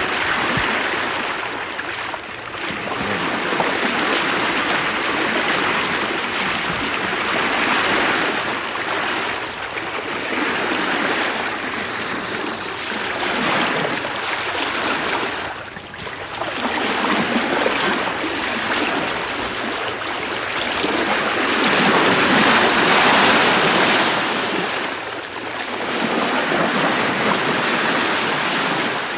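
Bow wave of a sail training schooner heard from the bowsprit: water rushing and washing along the bow as the ship sails at about 4 knots in a 9-knot wind. The wash swells and eases every few seconds.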